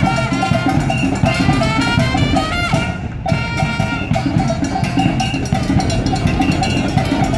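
Upbeat Latin dance music in salsa style, with a steady beat of percussion under melodic lines. About three seconds in, the music briefly thins out before the full band comes back.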